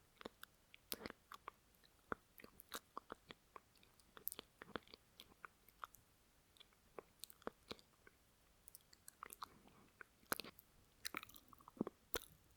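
Close-miked mouth noise: wet lip smacks and tongue clicks, irregular and sharp, several a second, picked up on a binaural microphone.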